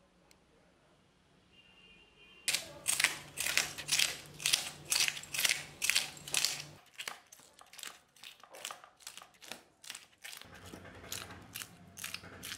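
Knife scraping the scales off a whole rohu fish in quick repeated strokes, about two a second, starting a couple of seconds in; the strokes grow softer after the middle.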